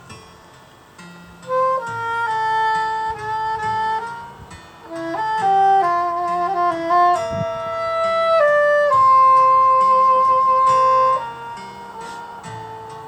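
Saxophone playing a slow, calm melody of long held notes over a soft, low accompaniment. A long sustained note about nine seconds in fades out near the eleventh second.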